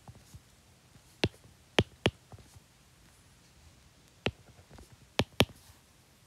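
About six short, sharp clicks at irregular intervals, a few in quick pairs, such as a mouse or stylus being clicked while the next formula is set up.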